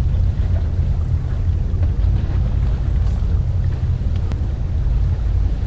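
Steady low rumble of wind buffeting the microphone, with a couple of faint ticks.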